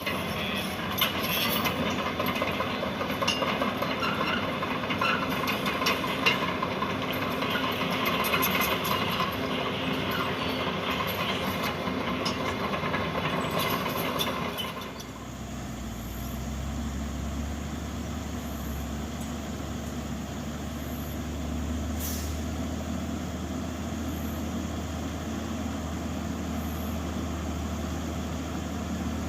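Caterpillar excavator loading base-course gravel into a dump truck: engine running under a busy clatter of small rattles and clicks for about the first half, then changing abruptly to a steadier, quieter low engine rumble.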